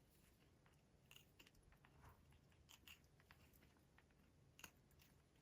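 Near silence broken by a handful of faint, short clicks and crunches, the clearest near the end: a blue-and-gold macaw chewing with its beak.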